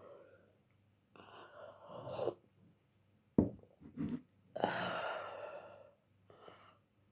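A person's throaty flu cough: a breath, two short sharp coughs about three and a half and four seconds in, then a longer cough-out and a weaker one near the end.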